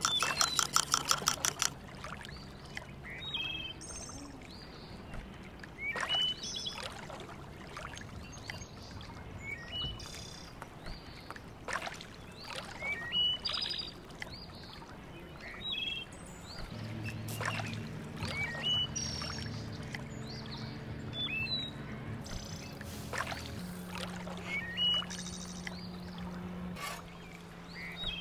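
A utensil beating a mixture in a bamboo cup, a fast run of clicks for about two seconds at the start. Then small birds chirp again and again over a low steady hum, with occasional taps and clinks of cooking utensils.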